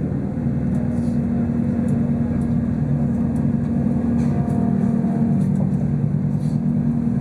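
Undersea-viewing boat's engine running with a steady low hum, heard from inside the boat's underwater viewing cabin.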